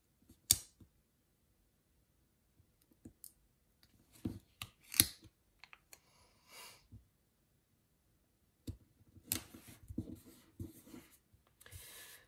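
Hands handling stickers and sticker paper on a desk: scattered sharp clicks and taps as stickers are pressed onto the page, a short scratchy noise about six seconds in, and denser paper rustling in the last few seconds.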